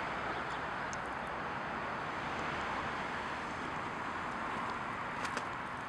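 Steady outdoor ambience: an even, continuous hiss with no distinct events, and a few faint ticks near the end.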